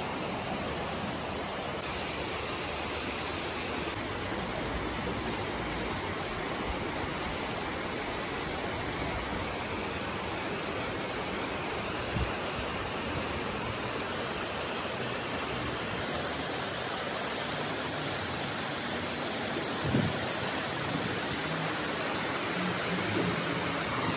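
Shallow mountain river rushing steadily over rocks and rapids. A vehicle engine becomes faintly audible near the end.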